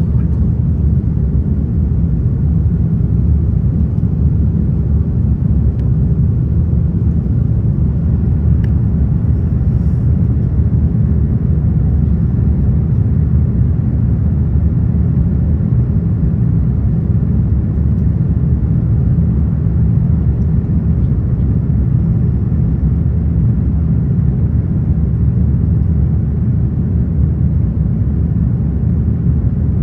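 Airbus A330 jet engines and airflow heard inside the passenger cabin as a loud, steady, deep drone.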